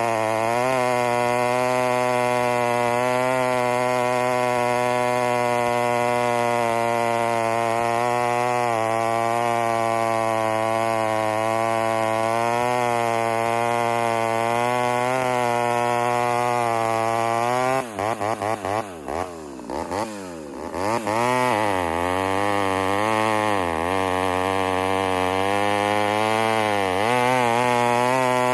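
Ported Homelite Super XL Auto two-stroke chainsaw running at high revs, held steady with a slight waver. About two-thirds of the way in, the revs fall and climb back several times in quick succession, then settle high again with a few brief dips.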